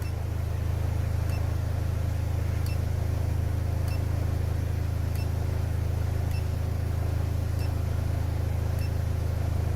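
Audi S3's turbocharged 2.0-litre four-cylinder, with IS38 turbo and catless downpipe, idling steadily. A faint short tick comes about every second and a quarter.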